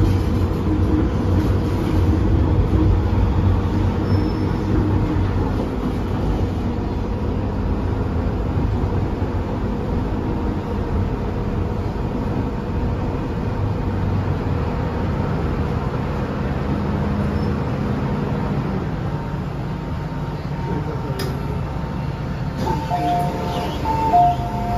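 MTR M-train electric multiple unit running, the steady rail and motor noise easing off as the train slows to a stop at a station. Near the end the door chime beeps in two alternating tones, and the doors open with a brief thump.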